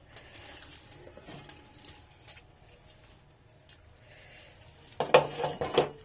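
Faint small clicks, then about five seconds in a louder clatter of a glass lid on a metal cooking pot as it is taken hold of and lifted.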